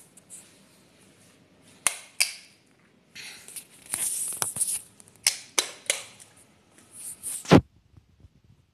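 Handling noise from a handheld phone: irregular rustling with several sharp clicks and knocks, the loudest knock near the end.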